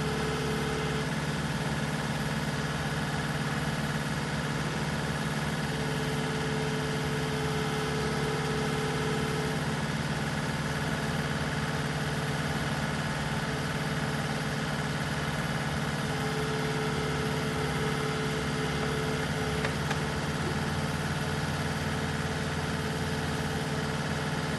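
Caterpillar skid steer's diesel engine running steadily. A higher steady tone comes and goes three times over it.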